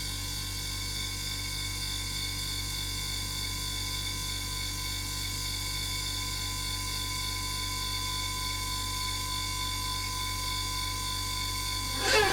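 A broken refrigerator humming steadily, with several constant whining tones over a low mains-like drone. Right at the end, a louder whine wavering in pitch suddenly starts.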